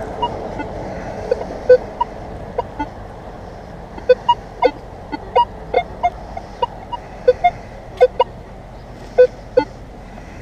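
Minelab X-Terra Pro metal detector giving short beeps at a few different pitches as its coil is swept over buried metal, about twenty blips at irregular intervals.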